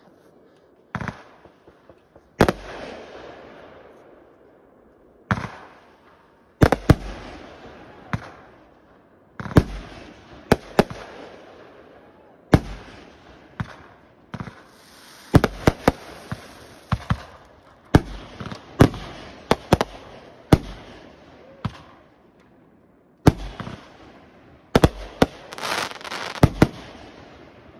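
Fireworks bursting overhead at close range: a long run of sharp bangs at irregular intervals, often a second or two apart and sometimes in quick pairs, each trailing off as it fades, with hissing between some bursts.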